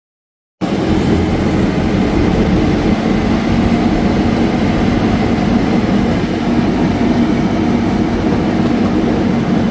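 Miniature replica C.P. Huntington park train running along its track: a steady rumble that starts about half a second in.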